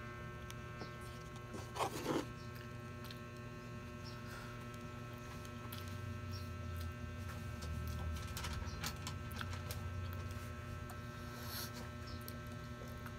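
Steady electrical hum, with a low rumble swelling between about six and ten seconds in. Over it, faint eating sounds from a person eating rice with her fingers: a few soft mouth and utensil clicks.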